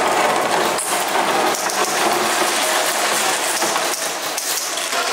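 Airsoft guns firing, a continuous mechanical rattle.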